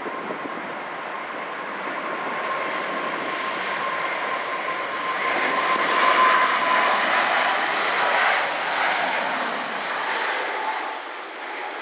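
Boeing 777-300ER's twin GE90-115B turbofans at takeoff thrust during the takeoff run: a loud jet rush with a steady tone running through it. It grows louder as the airliner passes, is loudest about six seconds in, then eases off slightly as it climbs away.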